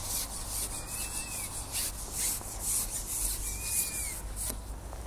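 Carbon fishing pole being shipped back through the hands as a hooked roach is brought in: a quick run of rasping rubs, two or three a second, that stops near the end.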